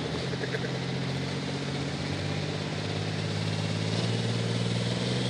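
Diesel engine of a Limited Pro Stock pulling tractor running at a steady speed, growing gradually louder.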